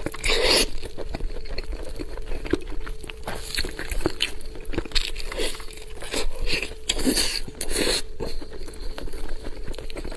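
Close-up biting and chewing of a large chicken leg quarter, with irregular crunches and moist crackles several times a second.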